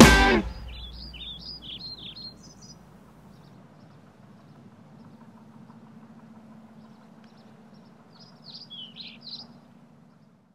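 The band's music cuts off in the first half-second. After that, faint bird chirps sound over a low, steady outdoor hum, with a second short run of chirps near the end.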